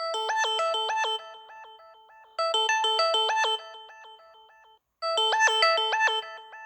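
Mobile phone ringtone: a short, quick, bright melody that repeats about every two and a half seconds, each phrase fading away before the next begins.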